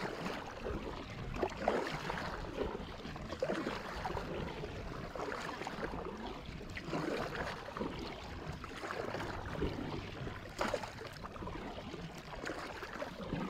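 Kayak paddle strokes in the water, with irregular splashing and water sounds around the hull as the kayak is paddled along.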